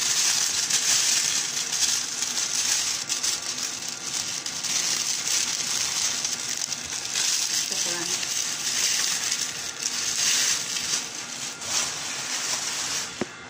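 Thin plastic bag crinkling and rustling continuously as hands work it.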